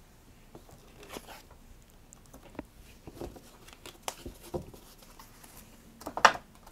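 Tarot cards and paper being handled by hand: a few short rustles and taps, the loudest a brushing rustle about six seconds in.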